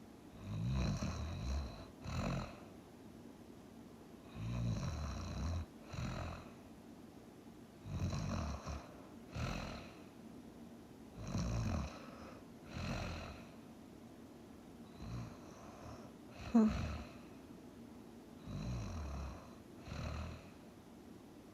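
A sleeping person snoring in a slow, even rhythm, a breath about every three and a half to four seconds, each a longer snore followed by a shorter one. About two-thirds of the way through, one breath ends in a sudden sharp snort, the loudest sound of the stretch.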